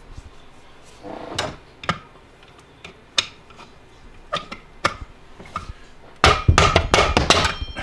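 A few light clicks and knocks of tools being handled, then, about six seconds in, a quick run of loud bangs lasting about a second: a screwdriver against the hot tub pump motor's shaft being banged on its end to drive the pump body forward off the motor.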